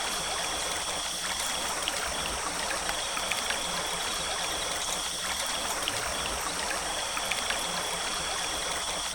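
Forest stream flowing steadily, with a high, even thin tone above the water and another high tone that sounds in stretches of about three seconds with short breaks.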